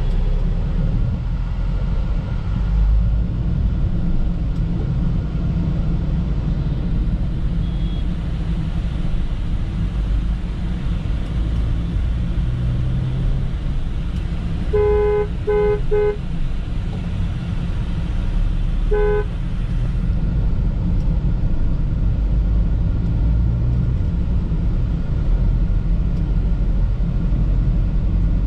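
Car being driven on the road, a steady low rumble of engine and tyres. About halfway through a car horn toots three times in quick succession, then once more about three seconds later.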